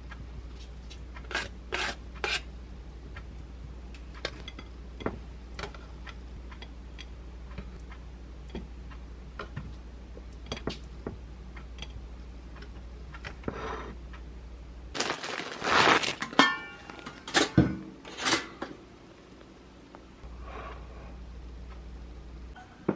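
Dishes being handled in a kitchen: scattered light clicks and taps of a bowl and ceramic plate as food is plated by hand, over a steady low hum. After about fifteen seconds the hum stops and a louder run of clatter follows, as dishes are knocked and set down.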